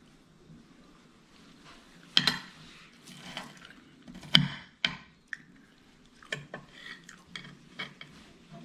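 Metal spoon clinking and scraping against a plate while scooping up scrambled eggs: a couple of sharp clinks, the loudest about four and a half seconds in, then a run of lighter taps.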